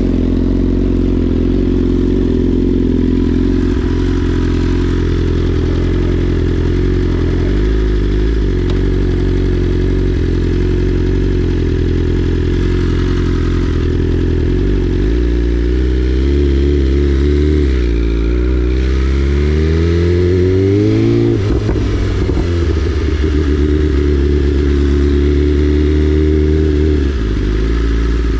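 BMW S1000RR inline-four motorcycle engine running through a full Akrapovic exhaust, loud. The engine note holds steady for long stretches, then rises and falls several times about two-thirds of the way through as the revs go up and come back down.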